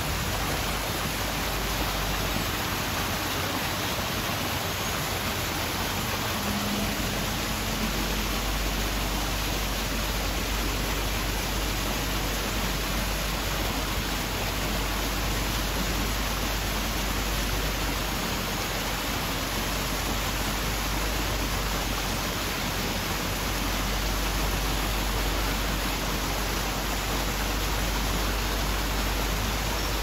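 Steady, even rush of running water, unbroken throughout.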